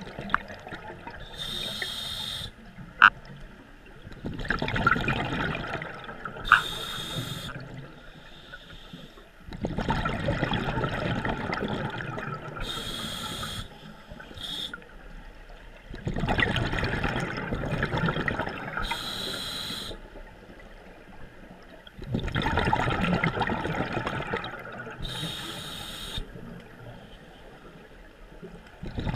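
Scuba diver breathing through a regulator underwater: a short hiss on each inhale, then several seconds of bubbling exhaust on each exhale, repeating about every six seconds for around five breaths, with a couple of sharp clicks early on.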